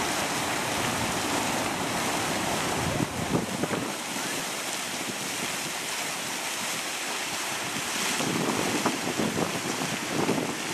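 Steady hiss of a fountain's splashing water, with wind buffeting the microphone at times, most around three seconds in and again near the end.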